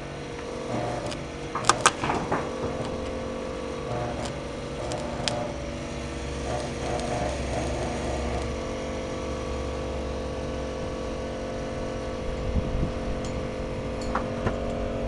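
Portable welding machine running with a steady hum, with a few sharp metallic knocks about two seconds in.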